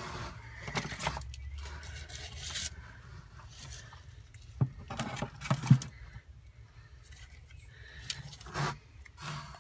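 Scraping, rubbing and a few light knocks against a plastic bin, scattered and irregular.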